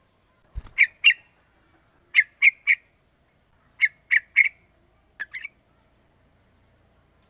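Young yellow-vented bulbul calling in short groups of two or three quick chirps, four groups about a second and a half apart, with a soft thump just before the first group.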